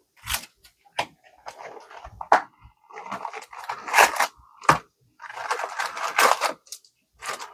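Packaging of a trading card box being torn open and crinkled, with sharp clicks and crackling rustles.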